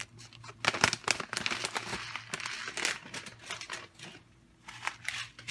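A foil pouch of boxed rice sides crinkling and rustling as it is handled, with a run of sharp clicks and crackles in the first half.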